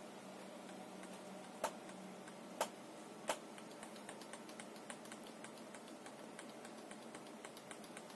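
Three sharp clicks in the first half, then faint scattered ticking, over a low steady hum.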